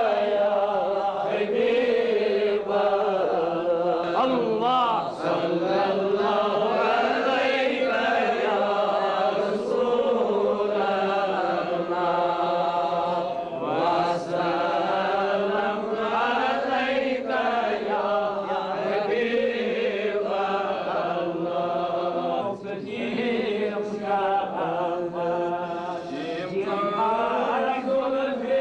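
Devotional chanting: a melodic vocal chant that runs on without a break, in long drawn-out notes that rise and fall.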